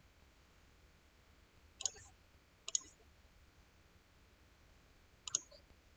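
Computer mouse clicking three times: two clicks about a second apart, then a third some two and a half seconds later, over faint room hiss.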